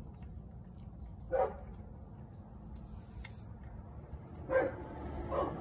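A neighbour's dog barking in three short barks: one about a second in, then two close together near the end.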